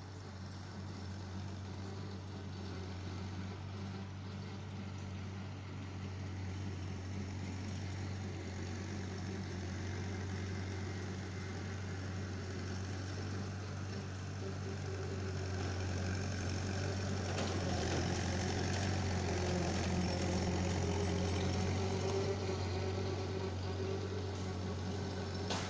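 Massey-Harris 22 tractor's four-cylinder engine running steadily as the tractor drives past. The sound grows louder as it comes closest, then eases off a little near the end.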